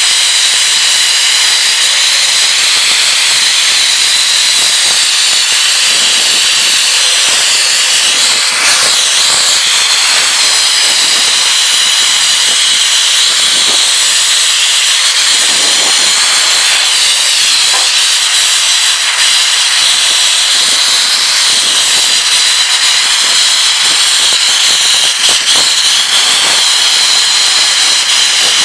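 Shot-blasting nozzle fed from a pressure blast pot, a loud steady hiss of compressed air and abrasive grit as it strips paint from a VW front bumper down to bare metal.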